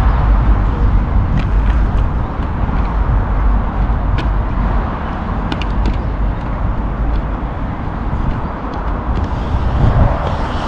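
Inline skates on concrete skatepark ramps: faint clicks and knocks of wheels and frames from the skaters, under a steady low outdoor rumble. Near the end a skater rolls up close, and the wheels rumble louder.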